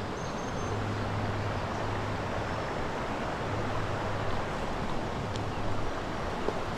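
Steady wash of flowing creek water around the wading angler, an even rushing noise with a steady low hum underneath.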